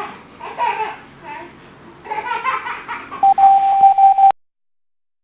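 A baby babbling and laughing, with no words, followed about three seconds in by a loud, steady high-pitched tone lasting about a second; then the sound cuts off suddenly.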